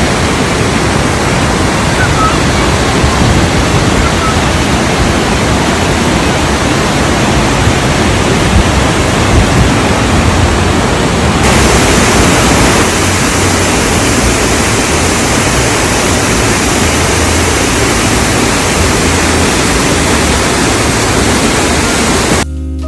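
Roar of Kegon Falls: a loud, steady rush of falling water that turns brighter about halfway through.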